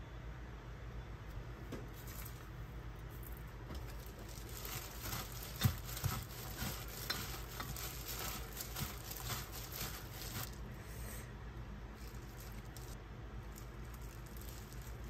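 A plastic-gloved hand and a wooden spoon toss seasoned soybean sprouts in a stainless steel bowl, giving a wet, crinkly rustle with a couple of sharper knocks about halfway through. The mixing is busiest through the middle and tails off towards the end.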